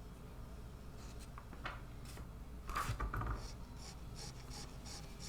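Hand rasp scraping over cured carbon fiber and epoxy on a guitar headstock: a few scattered strokes, a louder scrape about three seconds in, then a quick even run of short strokes about three a second.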